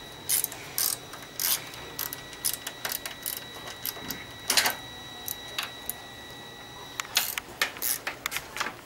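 Hand ratchet clicking in short, irregular runs as the fairing's fork clamp bolts are loosened.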